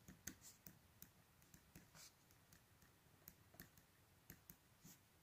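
Faint pen strokes on paper: light, irregular scratches and clicks as words are handwritten.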